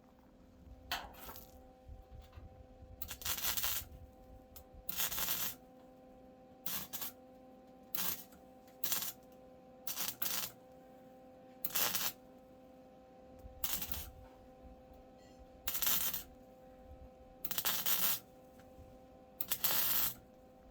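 MIG welder laying a series of short tack welds, about a dozen crackling bursts each under a second long, over a steady hum.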